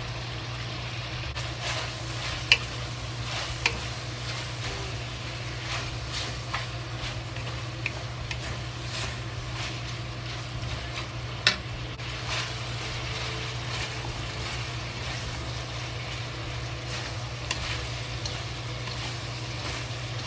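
Pork and fennel sizzling in hot fat in a pan as they are stir-fried, with scattered sharp clicks of the spatula against the pan, the loudest about two and a half seconds in and near the middle.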